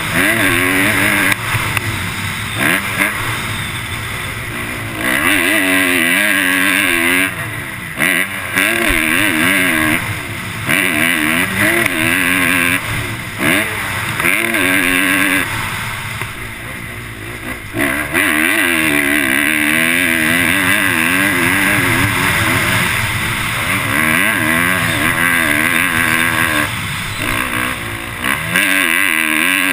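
Motocross bike engine revving hard on a dirt track. The pitch climbs and falls again and again as the rider accelerates, shifts and backs off for corners, with a longer easing off about halfway through.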